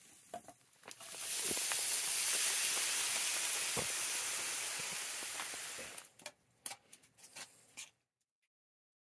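Cauliflower rice poured into a hot pan on a wood stove, sizzling hard for about five seconds. It dies down into a few light clicks and scrapes, then cuts off suddenly.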